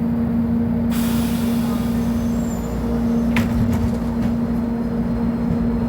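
Volvo B10M bus's inline-six diesel engine running steadily at one unchanging pitch. About a second in, a hiss of air starts and fades out over the next two seconds, followed by a few light clicks.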